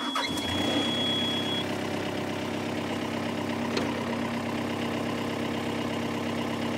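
Excavator's diesel engine starting up and settling into a steady idle. A high, steady warning tone from the cab sounds over it for about the first second and a half, then stops.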